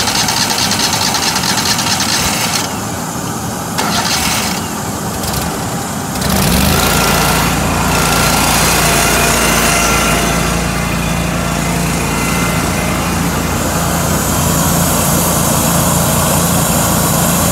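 Small gasoline engine of a crack-sealant melter kettle running steadily. About six seconds in, a deeper steady hum joins and the sound gets a little louder as the material pump is switched back on.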